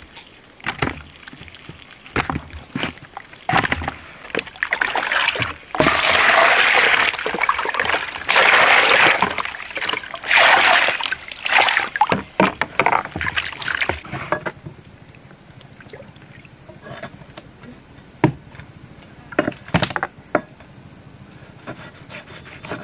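Water splashing and sloshing in a series of loud bursts through the middle, among scattered knocks.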